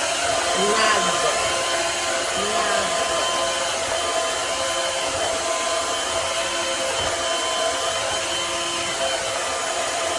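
Small household vacuum cleaner running steadily at full power: a constant rush of air with a steady motor whine.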